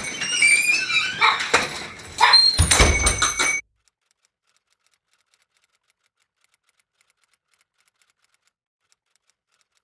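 A clatter of knocks and clicks mixed with high squeaks, then a heavy low thud about two and a half seconds in, all cutting off suddenly into dead silence.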